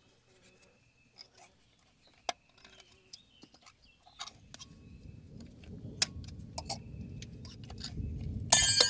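Small metallic clicks of parts being handled, then a low rumble that builds steadily from about four seconds in, ending in a loud burst of metal jingling and clinking.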